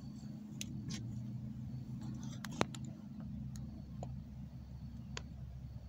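Handling noise from a phone as it is turned and held toward the view: a few scattered light clicks and taps, one sharper click about two and a half seconds in, over a steady low hum.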